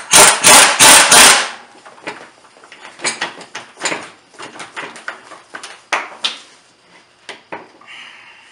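Impact wrench hammering in four short bursts in quick succession, driving the screws of coil spring compressors to squeeze a truck's front strut coil spring. Then scattered metallic clicks and knocks of tools and parts being handled.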